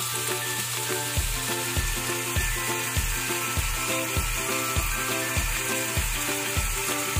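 Cubes of pork belly frying in their rendered fat in a wok, a steady sizzle as the pork turns crispy. Background music with a regular beat comes in about a second in.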